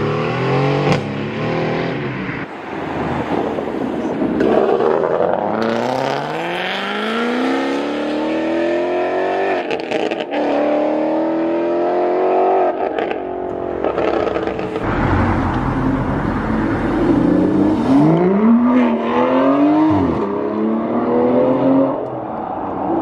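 Supercar engines accelerating hard, one car after another: the engine note climbs steeply in pitch, drops back at each gear change and climbs again, with a deep low rumble in between.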